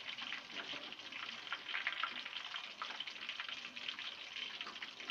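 Pieces of duck deep-frying in hot oil in a wok: a steady sizzle full of small crackles and pops.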